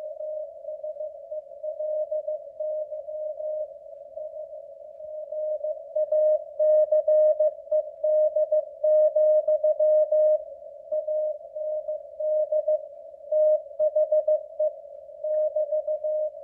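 Morse code sent at 15 words per minute as a single steady tone keyed on and off in dits and dahs: the W1AW code practice transmission. A narrow band of hiss surrounds the tone, with occasional faint static clicks, and the signal's strength swells and fades.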